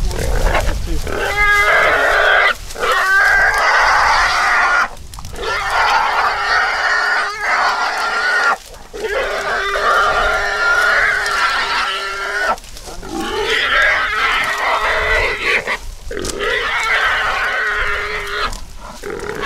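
Wild hog squealing loudly while caught and held by catch dogs: a string of long squeals, each two to four seconds, with short breaks between.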